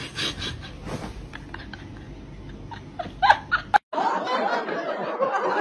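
People laughing, with a few knocks and short sharp sounds. About four seconds in, the sound cuts out for a moment and gives way to a denser, steady din.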